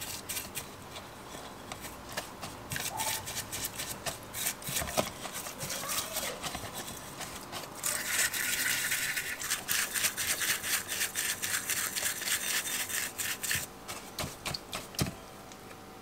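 Small brush scrubbing the inside of a wet metal drill housing: rapid scratchy strokes, busier and louder from about eight seconds in until a couple of seconds before the end.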